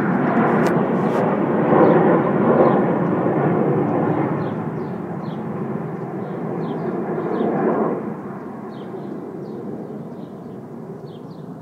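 Jet noise from the Frecce Tricolori's Aermacchi MB-339 jet trainers flying off into the distance. It is a rushing sound, loudest about two seconds in, that weakens and drops off sharply about eight seconds in. Small birds chirp faintly in the second half.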